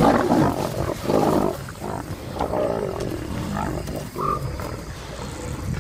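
Lions growling and snarling in a squabble over a hippo carcass, loudest in the first second and a half, then quieter, broken growls.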